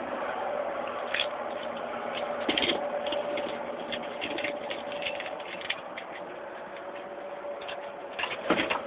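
1970 Chevrolet C10's inline-six engine idling, heard from inside the cab as a steady hum. Light clicks are scattered throughout, with a cluster of louder clicks near the end.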